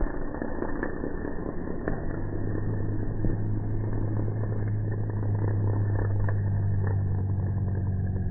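Off-road buggy engine after a rollover, running with a steady drone from about two seconds in. Over it is a rough, rumbling noise, with a few sharp knocks and clatters in the first few seconds.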